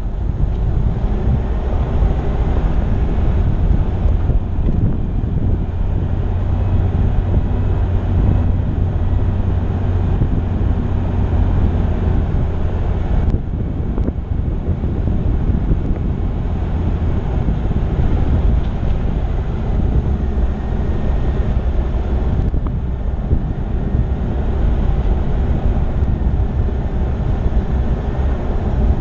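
4x4 driving on a gravel dirt track: steady low rumble of engine and tyres on loose stones, with wind buffeting the microphone.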